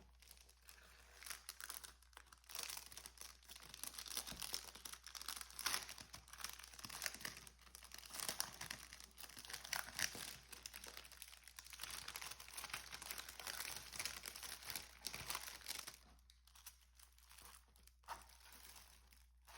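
Plastic packaging of a diamond painting kit crinkling and rustling as it is unwrapped and handled, on and off, with a quieter stretch near the end.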